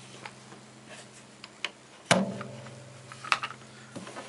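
Plastic clamps being released and taken off a cello's edge after the seam glue has set. There are scattered small clicks, and a sharp snap about two seconds in sets the hollow cello body ringing with a low hum that lasts about two seconds and cuts off near the end.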